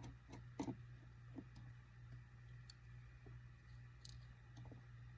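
Faint, scattered clicks and taps of a small screwdriver and tiny screws being handled while a small internal panel of an iPhone 5c is unscrewed, over a low steady hum. The strongest click comes about two-thirds of a second in, with a sharp high tick near the end.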